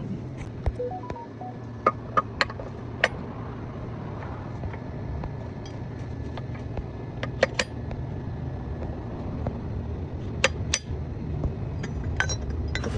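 Scattered sharp clicks and knocks, a dozen or so at irregular intervals, over a steady low hum.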